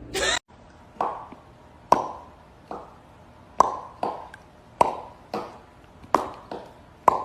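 A run of about ten sharp taps, spaced unevenly about half a second to a second apart, each with a brief ringing tail.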